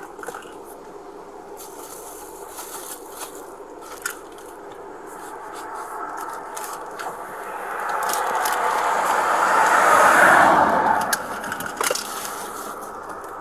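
Clothing rubbing and scraping against a body-worn camera's microphone, with a few sharp clicks and knocks. The rubbing grows louder, peaks about ten seconds in, then eases off.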